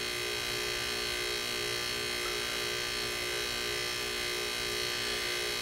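An old dehumidifier compressor rigged as a vacuum pump runs with a steady electric buzzing hum. It is pulling a vacuum on a glass jar to suck engine oil up a hose out of a Honda lawnmower's engine.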